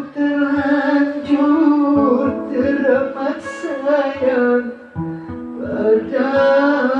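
Acoustic guitar fingerpicked, with regular bass-string plucks, under a solo voice singing a slow melody of long, wavering held notes.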